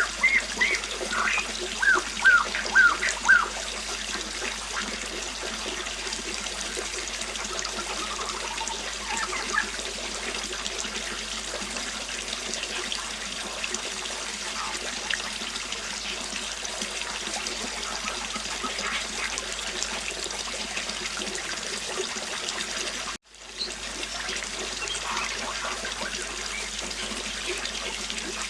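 Steady rushing of flowing river water with birdsong over it. In the first few seconds a bird gives a quick run of about five loud calls, each sliding downward, and fainter calls follow later. About two-thirds of the way through, the sound drops out for a split second and fades back in.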